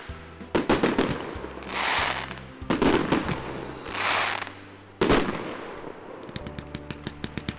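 Diwali fireworks going off: three sharp bangs about two seconds apart, each coming shortly after a swelling hiss and followed by crackling. Background music plays underneath, and a fast run of ticking pops starts near the end.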